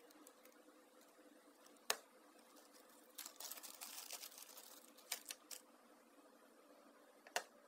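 Sharp small clicks, one about two seconds in, three in quick succession around five seconds and one more near the end, with a scratchy rustle in between, from small hard parts being handled.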